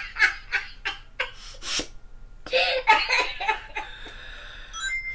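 A man laughing in quick breathy bursts, in two bouts. A short, high electronic beep comes right at the end.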